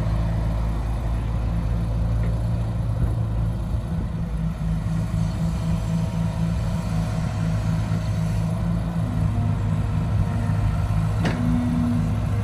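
Heavy vehicle's diesel engine running steadily at low revs, with one sharp knock near the end.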